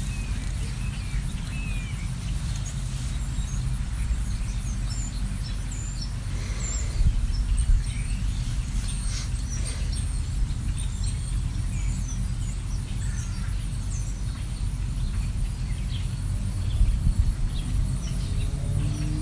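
Songbirds chirping outdoors, scattered short high calls, over a steady low rumble. A low droning tone comes in near the end.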